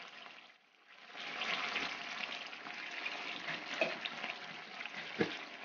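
Sardines sautéing in a wok, a steady sizzling hiss that comes in about a second in. A couple of short knocks sound near the end.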